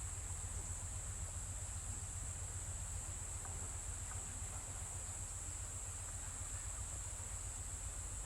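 Steady outdoor ambient noise: a constant high-pitched hiss over a low rumble, with no distinct events.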